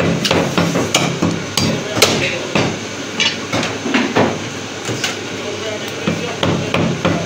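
Heavy meat cleaver chopping mutton foreleg pieces on a thick round wooden butcher's block: a run of sharp, irregular chops that thin out about five seconds in, then pick up again near the end.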